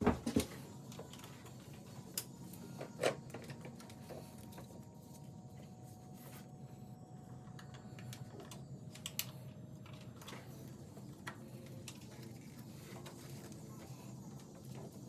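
Occasional clicks and knocks from repair work on an engine, like tools and parts being handled, over a steady low hum. A short cluster of knocks comes at the very start, with single sharp ones about 3 and 9 seconds in.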